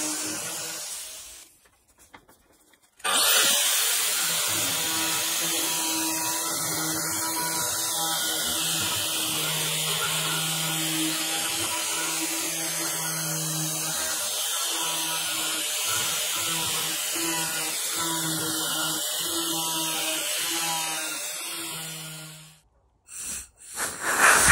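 Makita angle grinder with a rotary carving bit running steadily while it grinds out a hollow in a wooden cylinder. It cuts off briefly about two seconds in, runs again, and stops near the end, where music begins.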